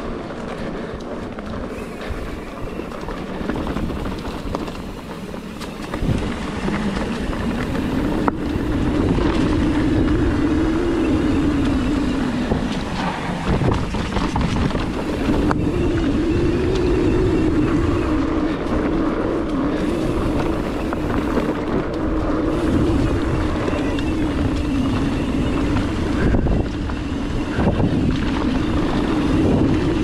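Mountain bike rolling down a dirt singletrack: tyre and trail noise with wind rush on the microphone. A wavering hum rises and falls with speed from about six seconds in, and there are a few sharp knocks from bumps.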